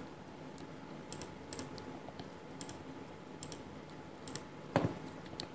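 Faint, scattered clicking of a computer mouse, about a dozen soft clicks with a low hiss behind them; the clearest comes a little under five seconds in.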